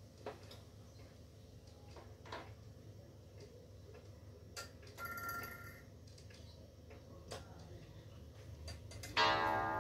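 Two-weight pendulum wall clock: small clicks as its hands are turned by hand, a brief faint ring about five seconds in, then the clock strikes once near the end, a loud ringing tone.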